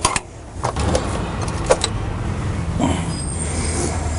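Hand tools working the AC compressor's mounting bolts: a few sharp metallic clicks in the first two seconds over a steady low hum.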